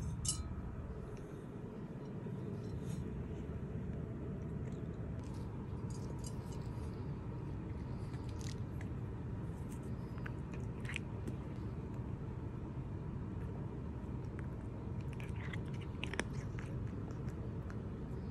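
A cat crunching a dry treat, with short crisp crunches in a few clusters, mostly in the middle and near the end, over a steady low hum.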